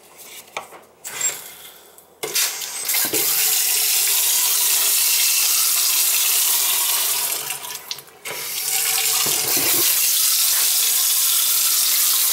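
Newly installed two-handle kitchen faucet turned on about two seconds in, its water running in a steady stream into the sink. The flow is on its first run after installation. It drops off briefly past the middle and comes back on full.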